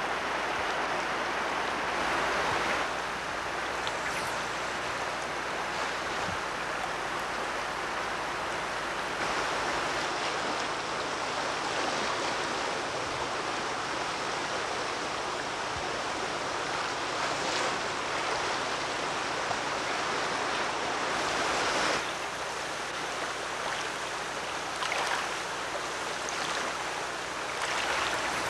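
Shallow river water running over a rocky bed, a steady rush of current.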